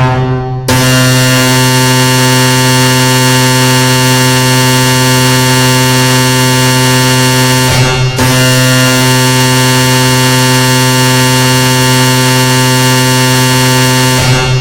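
Black MIDI 'noise challenge': millions of MIDI notes played at once, making a loud, harsh wall of sustained tones like a droning chord or horn. It breaks off briefly about half a second in and again about eight seconds in, then drops away at the end.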